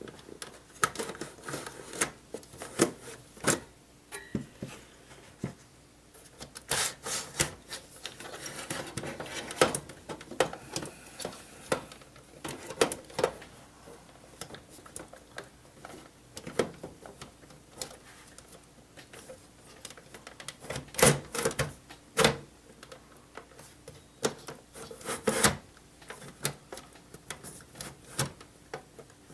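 Irregular clicks, knocks and scraping of plastic and metal parts being handled inside a desktop computer case, as optical drives are pulled out of and slid into the drive bays. The clicks come in busier clusters twice.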